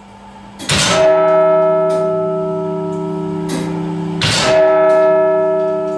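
Barrow Town Hall clock's hour bell struck twice by the clock's hammer, about three and a half seconds apart: the opening strokes of the twelve o'clock strike. Each stroke hits sharply and rings on with a long, slowly fading hum, and faint clicks of the clockwork come between the strokes.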